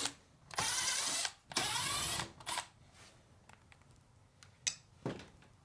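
Cordless driver with a 1/4-inch nut-driver bit spinning screws out of a refrigerator's sheet-metal back cover. It makes two runs of about a second each with a wavering motor whine, then a short third run, followed by a couple of light clicks near the end.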